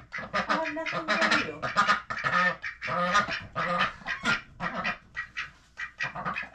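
Domestic mallard-type ducks quacking close by, a busy run of short calls several to a second, with a brief lull about five seconds in.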